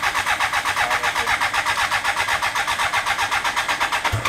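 Electric starter cranking the 1000cc trophy kart's engine at a steady pace of about six beats a second, without it catching. The fuel-injection computer is disconnected, so the engine is being turned over only to test the ignition. The cranking stops just before the end.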